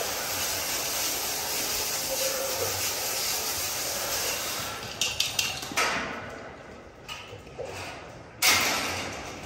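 A steady hiss, like a spray, runs and then stops about halfway through. It is followed by scattered clicks and knocks and one loud bang near the end, like metal kennel gear being handled.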